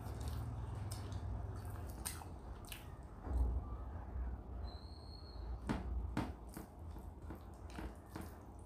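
Close-up eating sounds: wet chewing of a mouthful of rice and dal, and fingers squishing and mixing rice into dal on a metal plate, with scattered short clicks and smacks.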